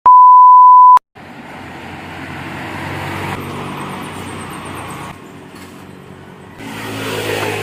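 A loud, steady test-tone beep lasting about a second. Then road traffic: passing motor vehicles whose noise swells, fades and swells again near the end.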